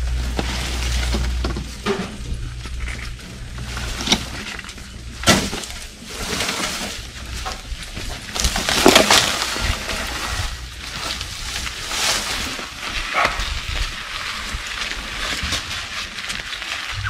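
Leaves and branches rustling and cracking, with irregular knocks and clanks, as a steel-framed home-made buggy is dragged out of bushes and pushed by hand.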